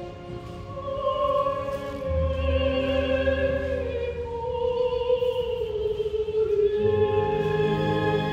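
Slow background music: a long held, wavering melody note that sinks slowly in pitch, over sustained low notes that come in about two seconds in.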